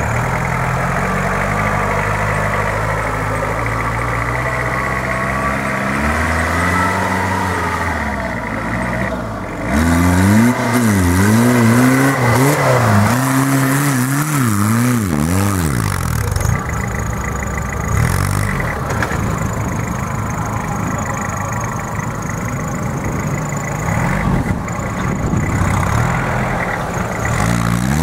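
Suzuki Samurai 4x4's engine working hard as it climbs a loose sand slope with its wheels spinning, the revs rising and falling several times in quick succession about a third of the way in, then running on more steadily.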